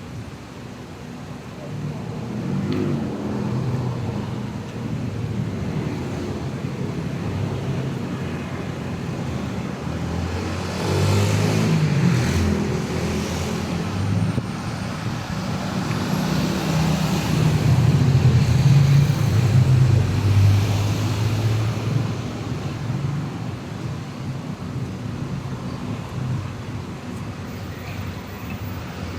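Road traffic passing close by: a steady low rumble of engines and tyres, with a louder vehicle going past about eleven seconds in and again around eighteen to twenty-one seconds.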